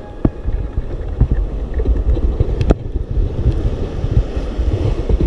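Wind buffeting the microphone in a loud, gusty rumble over surf washing on rocks, with a sharp click about halfway through.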